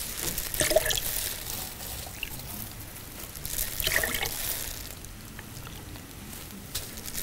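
Liquid pouring: pineapple juice being poured in measures for a mixed cocktail.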